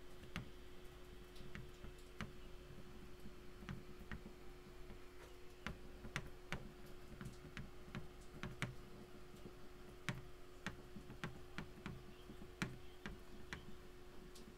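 Stylus tapping and clicking on a tablet while handwriting: irregular light ticks, a few close together, then pauses, over a faint steady hum.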